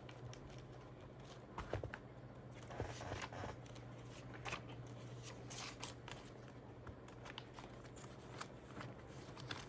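Faint rustling and light taps of paper cash being handled and counted out, over a low steady hum.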